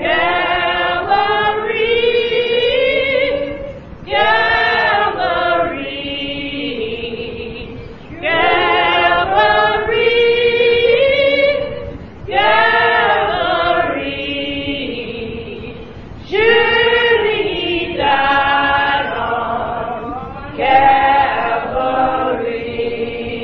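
Church choir singing a gospel song, with a woman's voice prominent, in sung phrases of about four seconds each. It is a muffled old recording with no high treble.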